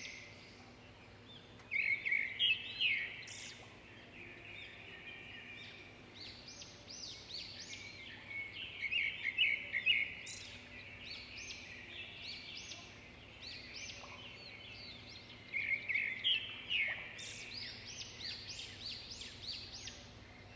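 Birds singing and chirping continuously, with louder flurries of rapid whistled notes about two seconds in, around nine seconds in, and around sixteen seconds in.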